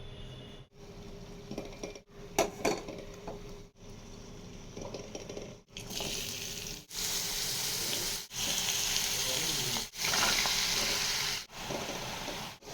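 Button mushrooms frying in a pan, an even sizzling hiss that gets much louder about halfway through, with a few sharp clinks of a utensil on the pan a couple of seconds in. The sound drops out briefly every second or two.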